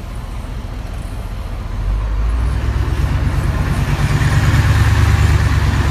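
Diesel engine of a double-decker sightseeing coach running close by, a deep pulsing rumble that grows much louder about two seconds in.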